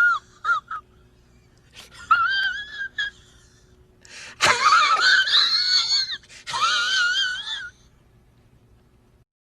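High-pitched whining cries with a wobbling pitch: a short one, then two longer ones, ending with a few seconds of silence.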